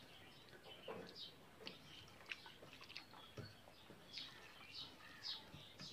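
Eating by hand: soft, irregular smacks and clicks of chewing, with fingers mixing rice and fish curry on a steel plate.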